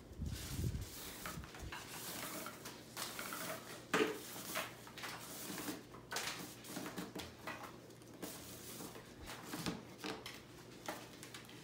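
Rush cord rustling and scraping as it is pulled through the woven rush seat of a wooden rocking chair, with irregular rubs and a few sharper knocks from handling.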